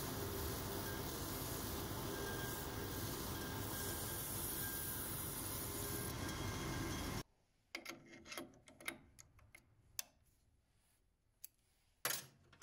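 Shoe finishing machine running steadily while the edge of a leather shoe's new sole is sanded against its small abrasive roller; the noise cuts off suddenly about seven seconds in. After that come a few faint clicks and a sharper knock near the end.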